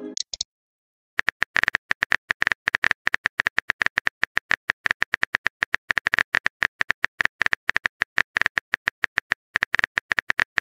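Rapid, irregular clicks of a phone keyboard's typing sound, several a second, starting about a second in after a brief gap. A short message chime fades out at the very start.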